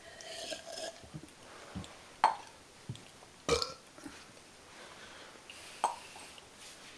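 Mouth sound effects imitating party noises: a short voiced, burp-like sound at the start, then three sharp pops a second or more apart, with a few faint clicks between.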